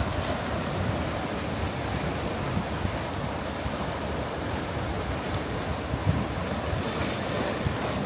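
Small waves breaking and splashing against a rocky shore shelf, with wind buffeting the microphone in a low, gusty rumble. One brighter splash comes near the end.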